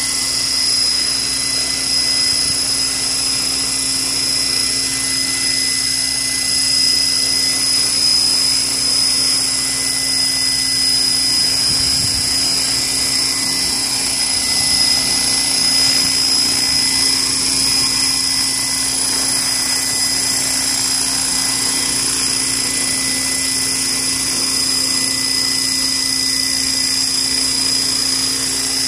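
Align T-Rex 600 radio-controlled helicopter running on the ground with its main rotor spinning at a steady speed: a steady hum with a high whine over it, not rising or falling.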